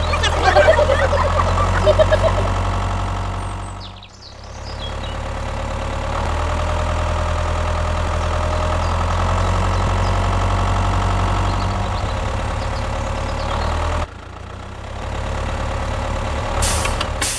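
Tractor engine idling steadily with a low, even drone, briefly fading out about four seconds in and dropping again near the end.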